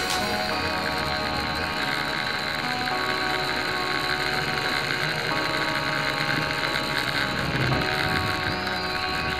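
Tarantula 1505 multirotor's motors and propellers buzzing steadily in flight, heard through the onboard keychain camera's microphone, with a small shift in pitch now and then as the throttle changes.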